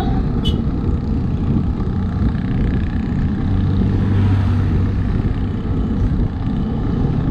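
Wind rushing over a GoPro action camera's microphone while riding along a road, with a steady low vehicle engine hum that swells about halfway through.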